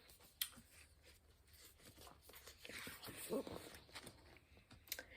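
Faint rustling and a few soft clicks from a picture book being handled, with a sharp click about half a second in and another near the end.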